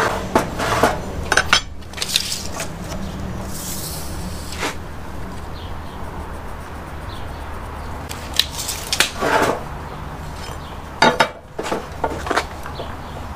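Metal speed square and tape measure knocking, clinking and scraping against pressure-treated pine boards while cuts are laid out, in scattered short clicks and clatters over a steady low hum.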